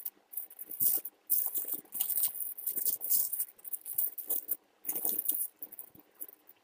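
Metallic foil crinkling in irregular bursts as hands crumple it and then twist it into a thin roll. The bursts thin out near the end.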